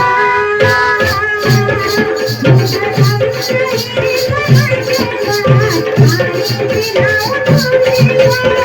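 Adivasi folk dance music: a wavering melody line over a steady drum beat of about two strokes a second, with a shaker ticking about four times a second.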